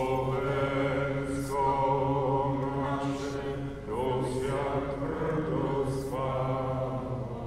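Slow, chant-like singing in long held notes over a low steady drone, the melody changing pitch every two seconds or so.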